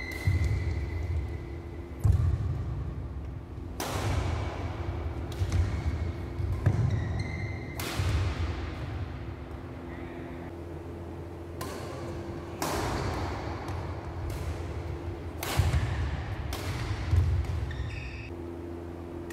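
Badminton rackets striking a shuttlecock, about ten sharp cracks at irregular intervals that echo in a large hall. Low thuds of footwork run under them, with a few brief high squeaks, typical of shoes on the court.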